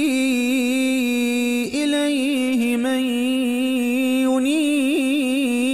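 A man reciting the Quran in a melodic chanted style. His voice holds long sustained notes decorated with wavering ornaments, with a brief break about two seconds in.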